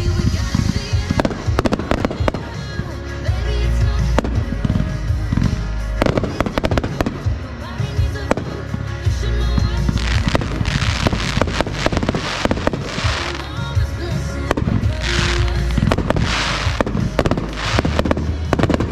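Fireworks going off in rapid succession in a finale barrage, with many sharp bangs and, in the second half, two stretches of dense hissing, crackle-like noise, over background music.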